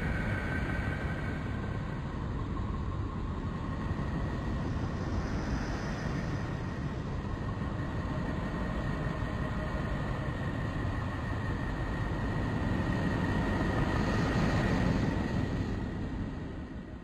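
Space-audio track presented as the sound of the planet Neptune: a steady rumbling, rushing noise with a faint high whistling tone above it, swelling a little near the end and then fading out.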